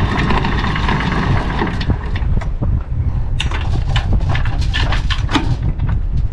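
Steady low wind rumble on the microphone at a sailboat's bow, with a run of sharp clanks and rattles in the middle from the anchor windlass and chain as the anchor is readied to drop.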